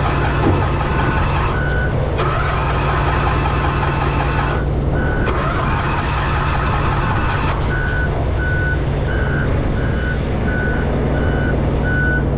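A small carbureted pony motor catches and runs roughly for a second or two, then dies, three times in a row. It won't stay running, which is taken for fuel starvation from a plugged carburetor jet. Under it a steady low engine hum continues, and a short beep repeats about one and a half times a second.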